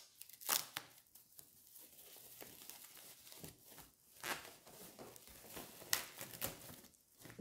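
Thin white plastic wrapping bag being torn open and crinkled by hand, in irregular crackles with a few sharper rips.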